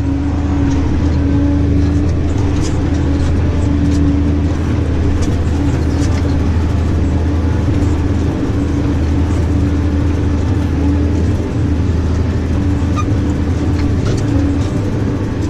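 New Holland tractor engine running steadily while spreading fertiliser, heard from inside the cab as a constant low drone with a steady hum above it. Faint clicks and rattles come and go as the tractor crosses rough ground.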